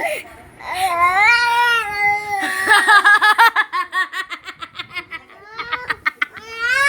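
A high-pitched voice wails in a long wavering cry, then breaks into a quick run of laugh-like pulses, then rises into another wail near the end.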